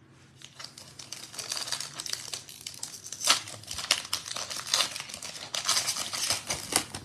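Foil wrapper of a 2021 Panini Prizm football card pack crinkling and tearing as it is pulled open by hand, with sharp crackles, loudest in the second half.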